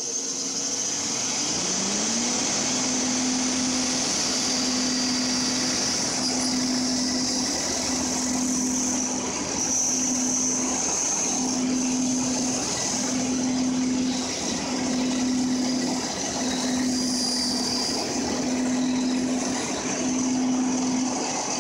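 Bandsaw with a 1/4-inch, 14-teeth-per-inch blade, just switched on: its motor rises in pitch as it comes up to speed in the first two seconds. It then runs steadily while cutting the fir block, with a hum that pulses about every second and a half.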